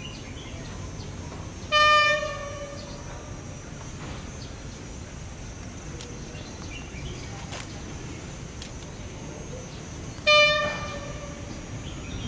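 Diesel locomotive horn giving two short toots about eight and a half seconds apart, each a single clear note that dies away quickly, sounded by a train approaching the station.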